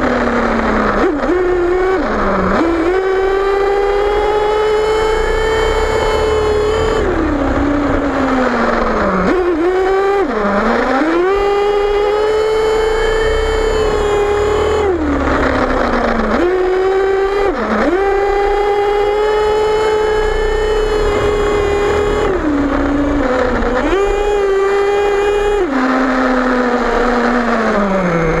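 Small nitro engine of an HPI Savage XL RC monster truck, heard up close from on board, running at high revs under throttle. The pitch holds steady for several seconds, then drops sharply as the throttle is let off and climbs straight back, over and over.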